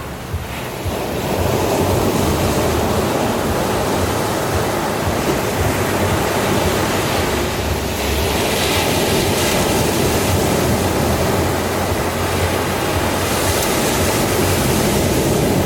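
Ocean surf breaking on a shore: a continuous rushing wash of water, with brighter, hissier surges of breaking waves about halfway through and again near the end.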